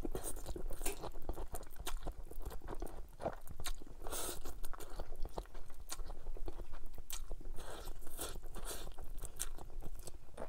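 Close-miked chewing and slurping of chow mein noodles, with many wet mouth clicks and short sucking bursts.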